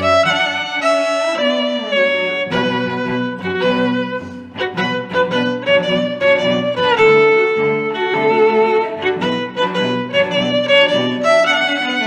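Instrumental background music led by violin, playing a quick melody of short notes over lower sustained string notes.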